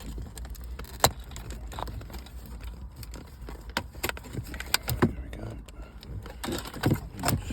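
Scattered sharp plastic clicks and knocks of car interior trim and a wiring loom being handled and pried, the sharpest about a second in, over a steady low hum.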